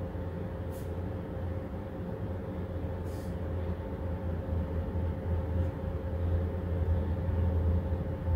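Steady low mechanical hum with a thin steady tone above it, running without change. Two brief faint scratches about a second and three seconds in.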